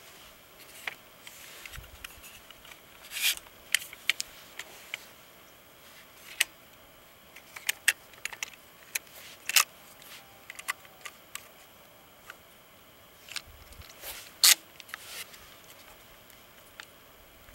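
Irregular clicks, rubs and light scrapes of a rifle being handled and adjusted at the stock and action, with a few sharper clicks about three, nine and fourteen seconds in.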